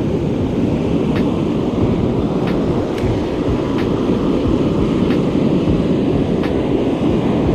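Steady low rumble of wind buffeting the action camera's microphone, mixed with surf washing up the beach. Faint, irregular ticks sound about once a second.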